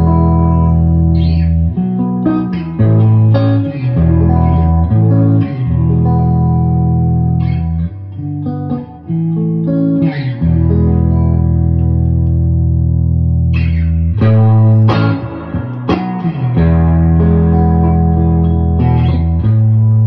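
Electric guitar played through a Princeton Reverb clone tube amp with its reverb set at about 4: plucked notes and chords that ring out, with a brief lull about nine seconds in.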